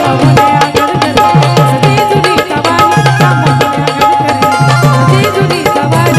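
Instrumental break in a Marathi folk song: a dholki drum keeps a driving rhythm of deep bass strokes under a held melody line.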